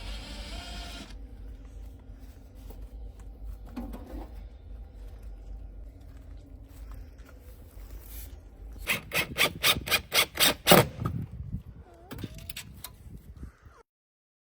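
A low steady rumble, then a quick run of about eight sharp knocks, roughly four a second, starting about nine seconds in; the sound cuts off abruptly near the end.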